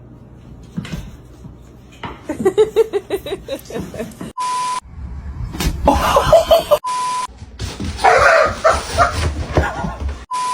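Three short, steady beep tones, cutting between bursts of pet-clip sound that include a quick run of dog-like yaps and barks about two to four seconds in.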